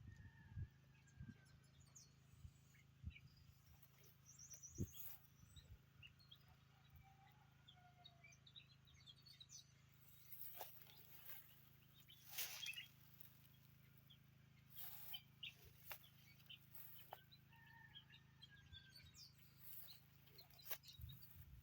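Faint bird chirps and short calls scattered throughout, with occasional brief rustling and clicking noises.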